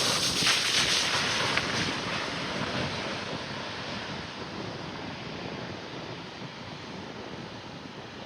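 Roar of a Boeing 737 MAX's jet engines and rushing air: a loud, even hiss at first that fades steadily over the following seconds.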